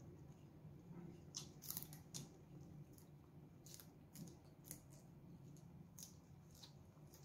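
Raw leafy greens being bitten and chewed: faint, irregular crisp crunches, about ten in all, crackling up high.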